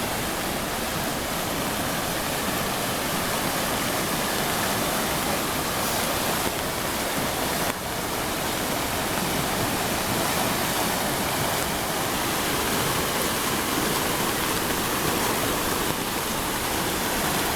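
Creek in flood after heavy rain: fast, turbulent water rushing past as a steady, even wash of noise, the stream running a few feet above its normal level.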